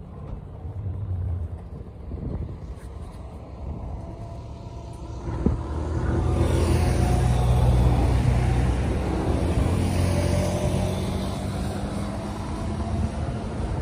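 Low engine rumble of a passing motor vehicle, swelling up about five seconds in and then fading slowly.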